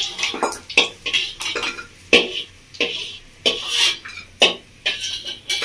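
Flat brass spatula scraping and clinking against a hammered brass kadai and a steel bowl as fried bori (lentil dumplings) are scooped out of the oil: about a dozen separate sharp clinks and short scrapes.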